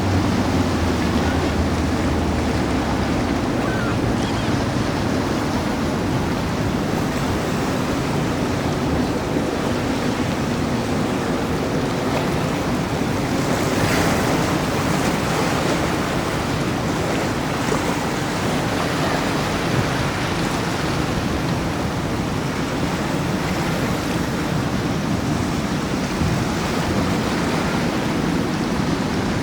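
Steady rushing noise of wind and water, with a low hum that stops about three seconds in.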